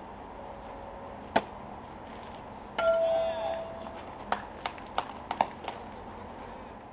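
A pitched baseball smacking once into the catcher's mitt, followed about a second and a half later by a short ringing chime-like tone and then a quick run of sharp clicks.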